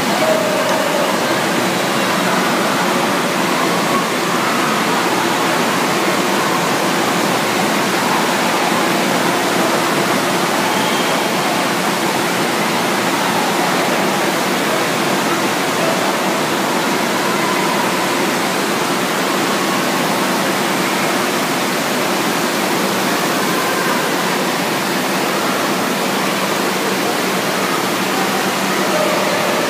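Indoor water park din: a steady rush of moving water from the pools and water features, with faint scattered voices of the swimmers beneath it.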